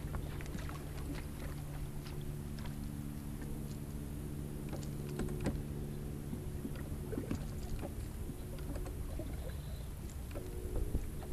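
A boat's motor humming steadily, with scattered light clicks and ticks over it.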